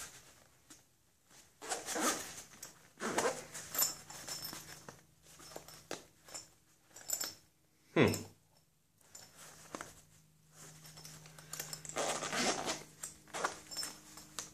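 A package being worked open by hand: bursts of rustling and scraping, with one short, sharp sound that falls in pitch about eight seconds in.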